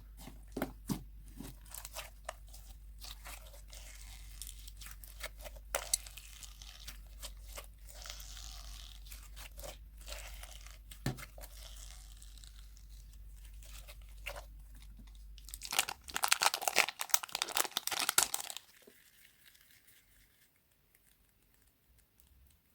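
Slime being worked by hand, giving sticky crackles and pops. A dense run of loud crackling comes about sixteen seconds in, and after it things are much quieter.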